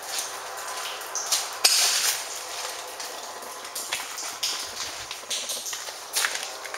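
Irregular crunching and scuffing of footsteps on a gritty, debris-strewn concrete floor, with a louder scrape about two seconds in.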